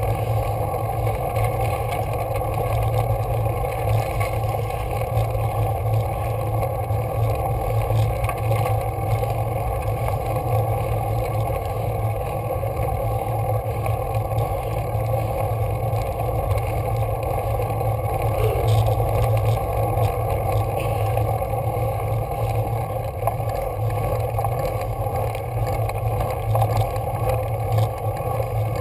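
Steady, even rumbling noise of a road bicycle climbing a rough, gravelly mountain road, with no breaks or distinct knocks.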